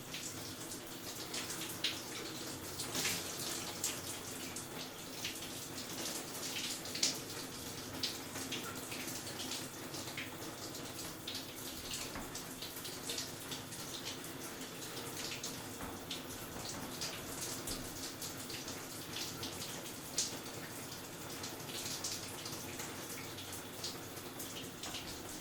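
Shower running steadily, water spraying and pattering, with irregular sharper splashes and drips.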